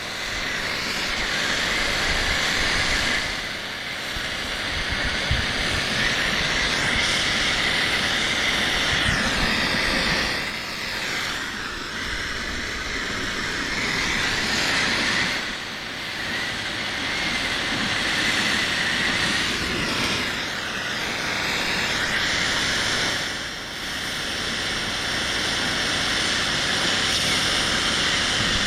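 Gas brazing torch burning with a steady hiss, dipping briefly about five times as the flame is moved or adjusted.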